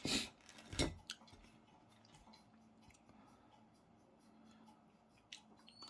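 Eating sounds: two short, loud noisy sounds right at the start and just under a second in, then faint chewing with scattered small clicks.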